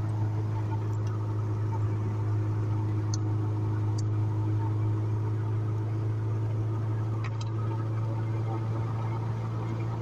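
Honda Civic EK hatchback with a swapped K24A2 2.4-litre four-cylinder engine cruising at a steady speed, heard from inside the cabin as a constant low drone of engine and road noise. A few faint ticks come through over it.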